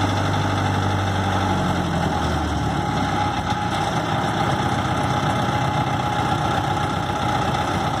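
Old road roller engine idling after a cold start. About two to three seconds in, its steady low note breaks up into rougher, less even running.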